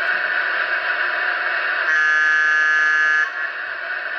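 MTH HO-scale Milwaukee Road Bi-Polar electric locomotive model's DCS sound system, playing through the model's small onboard speaker: a steady electric-locomotive running hiss, with one horn blast of about a second and a half starting about two seconds in.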